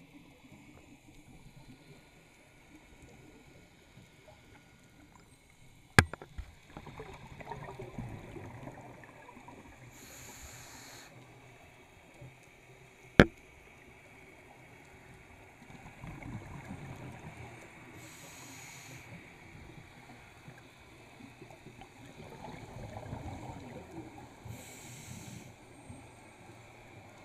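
Underwater sound of a scuba diver breathing through a regulator: a short hiss on each inhale and a low bubbling rumble of exhaled bubbles, repeating about every seven or eight seconds. Two sharp clicks, the loudest sounds, come about six and thirteen seconds in.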